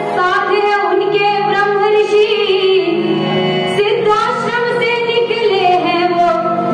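Music: a woman singing a melodic song with long, gliding notes over steady instrumental accompaniment.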